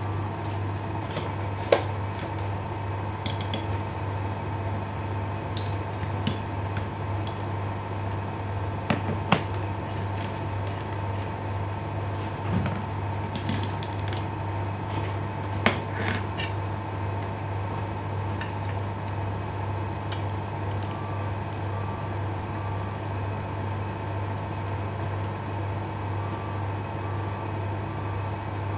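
Scattered sharp metallic clicks and taps from Makita angle grinder parts (guard, flange, screws) being handled and fitted by hand, with the grinder not running. A steady low hum runs underneath.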